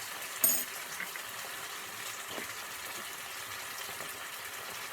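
Chopped tomatoes sizzling steadily in a frying pan as they cook down, with a single sharp metal clink about half a second in.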